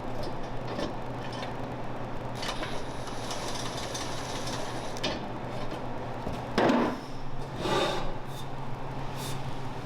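Workshop noise from hand work on a vehicle: scraping and rubbing of tools on parts over a steady hum. There are scattered clicks and two louder knocks about two-thirds of the way through.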